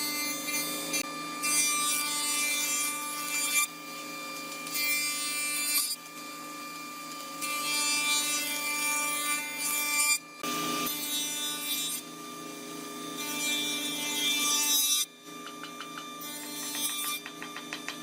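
Wood being cut or abraded by machine tools in a run of separate passes, each a few seconds of loud rasping hiss, over a steady hum.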